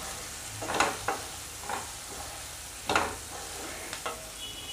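A spatula stirring and scraping chopped tomatoes and sweet corn around a nonstick kadai, five scraping strokes with the loudest about three seconds in, over a steady gentle sizzle of the vegetables frying in oil.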